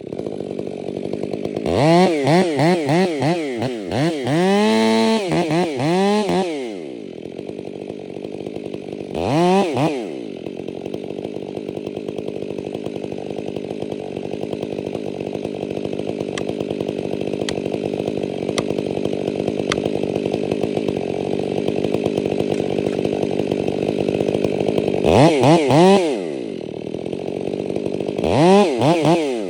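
Two-stroke chainsaw idling, revved up and let fall back several times: a quick run of blips about two seconds in, a longer rev around five seconds, one near ten seconds, and two more near the end.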